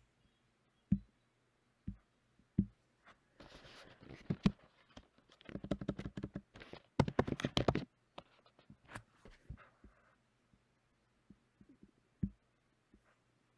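Computer keyboard typing: a few separate key presses, then a fast run of keystrokes for several seconds, then scattered clicks near the end.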